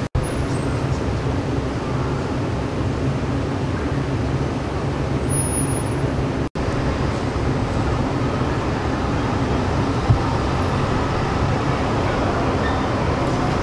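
Steady low rumble of city street traffic, which cuts out for an instant twice.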